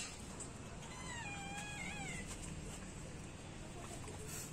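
One high, wavering animal whine, about a second long, starting about a second in.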